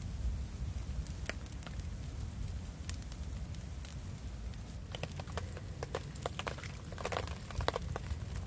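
Wood campfire crackling, with sharp pops scattered through and thicker crackling over the last few seconds, over a low steady rumble.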